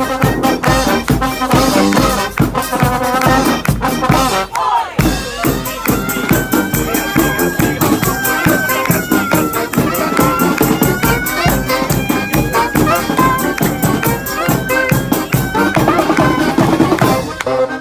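Live brass band with percussion playing a lively tune over a steady beat. The music breaks off briefly about five seconds in, then a long, wavering melody line carries through the middle.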